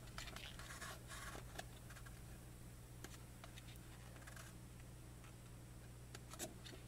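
Faint rustling and soft ticks of a glossy photo book's pages being handled and turned, with one sharper tap near the end, over a low steady hum.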